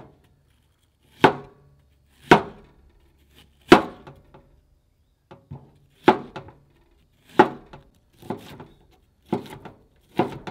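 Chef's knife chopping an onion on a plastic cutting board: about eight sharp chops, roughly one a second with uneven pauses, some followed by a lighter tap or two.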